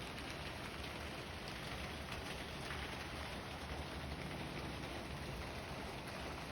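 Steady rain falling, an even continuous hiss of many drops.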